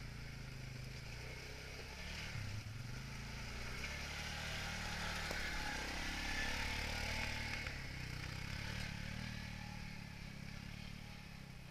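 Quad bike (ATV) engine running under load as it climbs a rutted dirt trail. It grows louder toward the middle as the quad passes close, then fades.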